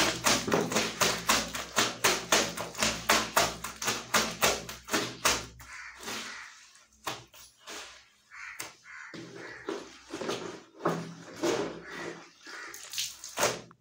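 Wet clothes being scrubbed by hand, quick rhythmic rubbing strokes about four a second that slow to irregular strokes after about six seconds.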